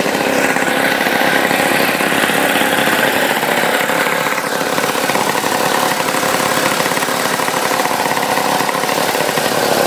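Single-cylinder, air-cooled Villiers petrol engine on a 1950s reel lawn mower idling steadily.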